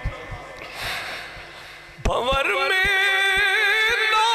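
A man singing a naat into a PA microphone in long, drawn-out wavering notes with heavy echo. The line dies away in the first half, and the voice comes back loud about two seconds in on a high, held, quavering note, over low thuds that keep a beat underneath.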